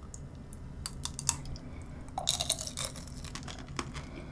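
Tomato tanghulu being chewed: the hard sugar candy shell cracking in sharp, irregular crunches, with a dense run of crunches a little past halfway.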